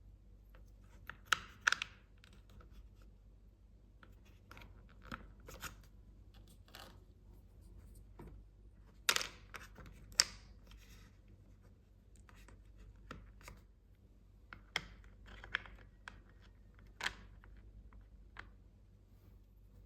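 Toy packaging and small plastic playset parts being handled: a string of scattered crinkles, taps and clicks, the sharpest two near the middle.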